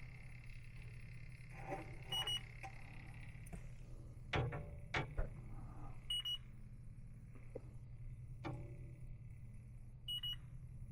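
Electronic refrigerant leak detector giving a short, high double beep about every four seconds while searching for a leak that has not been found. Underneath runs a steady low hum, with a few sharp knocks near the middle.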